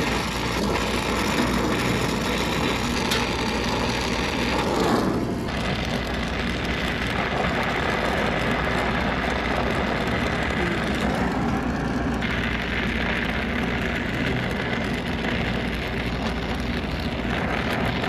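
Brazing torch burning steadily while copper refrigerant tubing is brazed onto a compressor, with the sound shifting abruptly about five and twelve seconds in.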